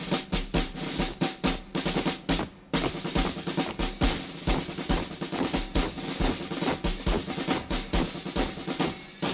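Marching snare and bass drums playing a fast drum cadence with rolls, pausing briefly about two and a half seconds in.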